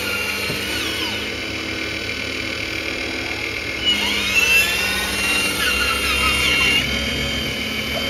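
Radio-controlled scale model Hitachi Zaxis 870 LCH excavator at work: a steady high electric whine from its motors, with the pitch gliding up and down as it swings round and moves its arm. The whine grows louder about four seconds in.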